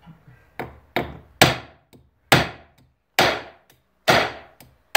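Ball-peen hammer striking a small platinum bar on a steel bench block, forging the melted button into square stock: a series of sharp blows, each ringing briefly. Three come close together about half a second in, then about one a second.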